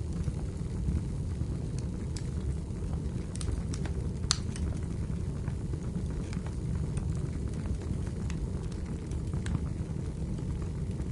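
Wood fire burning in a fireplace: a steady low rumble with scattered sharp crackles and pops, one louder pop a little over four seconds in.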